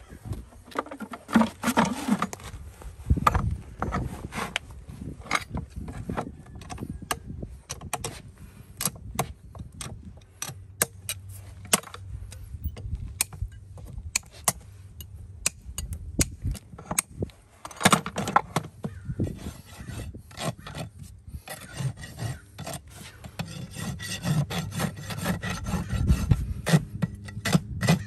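Sharp metallic clicks and snips of a farrier's pincer-type hand tools working at a shod hoof, followed in the later part by a rasp scraping back and forth along the hoof wall in repeated strokes.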